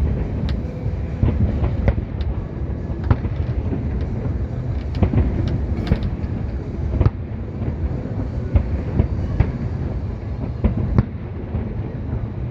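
Fireworks display: a continuous low rumble of booms with sharp bangs and cracks scattered irregularly throughout.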